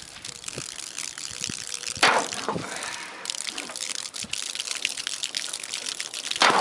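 Liquid gushing and trickling out of a metal can that a sword blade has pierced, splattering down the wooden post beneath it, with a louder burst about two seconds in.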